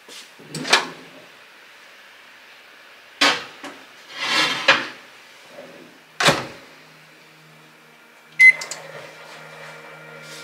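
Countertop oven range: the door is opened, a dish is set inside with a few knocks, and the door is shut with a clunk about six seconds in. About eight seconds in it beeps once and starts running with a steady hum, beginning a 130°C steam bake.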